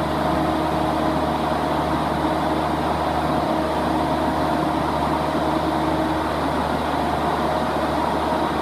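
Lovol 1006TANG six-cylinder natural gas/biogas engine driving an 80 kW generator set, running at a constant speed: a steady engine drone made of several held tones over an even noise.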